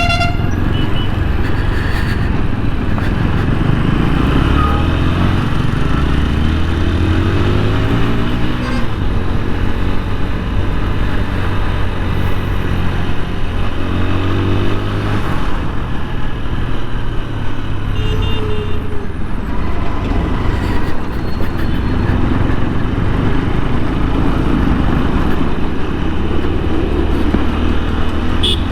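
TVS Apache RTR 160 4V's single-cylinder engine running as the bike is ridden, its pitch rising several times as it accelerates through the gears. The owner reports tappet noise coming from this engine.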